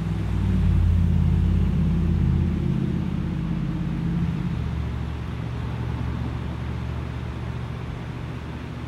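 Low, steady engine rumble, loudest in the first few seconds and then slowly fading.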